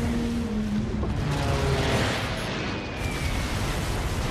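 Movie battle sound effects of a warship under air attack: a dense din of explosions and anti-aircraft gunfire, with held music notes underneath at the start.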